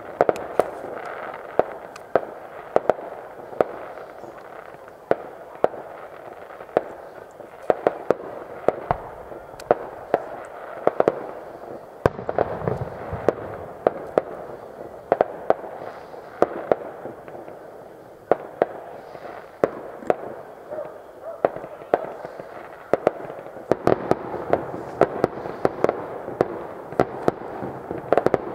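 Fireworks display: a dense, irregular run of sharp pops and crackles, often several a second, over a steady background hum.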